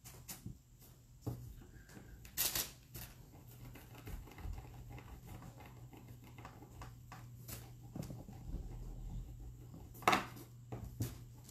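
Parchment paper rustling and crinkling with small taps as Sculpey clay is pressed by hand and rolled flat under it with a small roller; two louder crinkles about two and a half seconds in and about ten seconds in. A faint steady low hum runs underneath.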